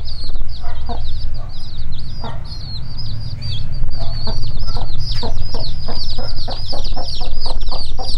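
Chicks peeping nonstop in high, falling cheeps while the mother hen clucks to them: a few scattered clucks at first, then a quick steady run of about three clucks a second from about halfway in. A low steady hum sits underneath.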